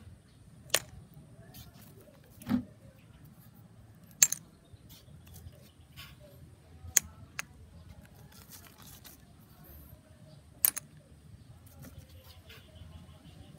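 Metal coins dropped one at a time into a plastic cup of vinegar and salt, a short, sharp clink every couple of seconds as each coin hits the cup or the coins already lying at the bottom. About six clinks in all, one duller than the rest.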